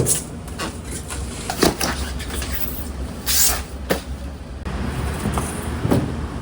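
Scattered knocks and clicks over a steady low hum, with a short hiss a little after three seconds in.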